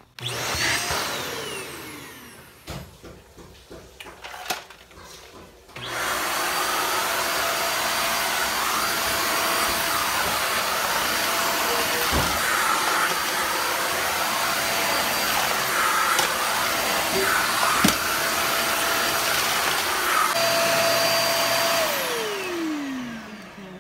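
Xiaomi Deerma DX700 stick vacuum cleaner. A short run at the start whines down as the motor is switched off. About six seconds in it is switched back on and runs loudly and steadily with a whine while the floor head is pushed across a tiled floor. Near the end it is switched off and the whine falls as the motor spins down.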